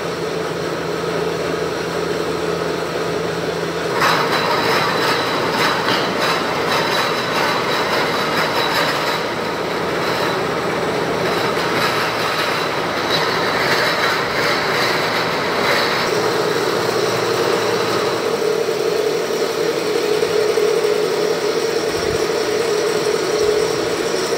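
Heel cutting machine running with a steady motor hum. About four seconds in, a louder, harsher cutting sound with a high whine joins it. It eases off again about sixteen seconds in.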